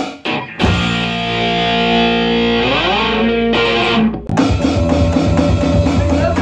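Rock band rehearsing on electric guitar, bass and drums: after a couple of short stabs, a ringing electric-guitar chord is held and slides up in pitch, and about four seconds in the drums and bass crash in and the full band plays on.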